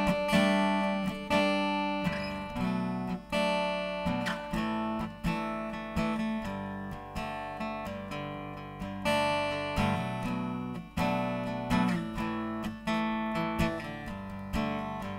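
Acoustic guitar strummed in a steady rhythm, chords ringing between the strokes, with no voice: an instrumental break in the song.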